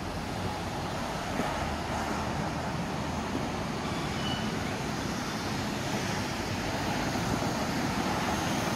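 Road traffic on a busy multi-lane city street: a steady wash of car engines and tyre noise, growing a little louder toward the end.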